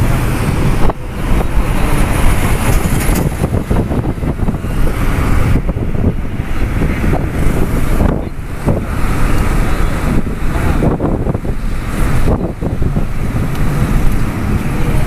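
Road and wind noise heard from inside a moving vehicle on a city road: a loud, steady rumble with passing traffic, dipping briefly a few times.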